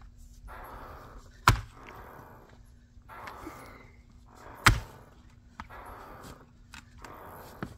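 Axe striking a willow firewood round twice, about three seconds apart, each a sharp crack of steel biting into wood. Quieter rustling and a few small knocks come between the strikes.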